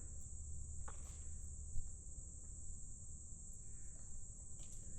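A steady high-pitched insect chorus trilling without a break, with a faint click and then a short knock about two seconds in.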